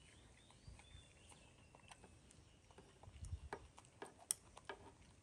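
Near silence with a few sharp, light clicks and taps in the second half, from metal kitchen tongs being handled over a plate. A faint high chirp comes near the start.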